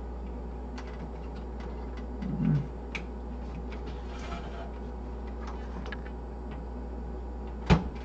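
Scattered small clicks and taps of a floppy drive ribbon cable and its plastic connector being worked onto a motherboard header inside a metal PC case, ending in one sharp click near the end as the connector goes in. A steady low hum runs underneath.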